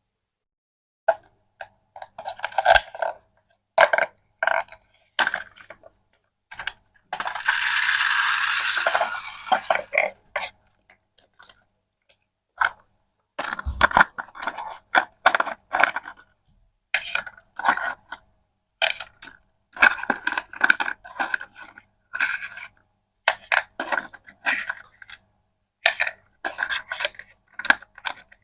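Small hard objects clicking and clattering as they are handled, in many short irregular strokes; about seven seconds in, a hissing rustle lasts around three seconds.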